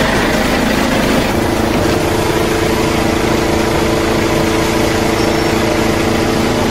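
Volvo truck's diesel engine idling steadily.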